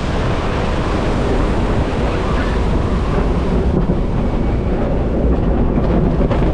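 Gale-force wind of about 45 knots buffeting the microphone over the rush of breaking seas, heard aboard a Class 40 racing sailboat. It is a loud, steady roar with no let-up.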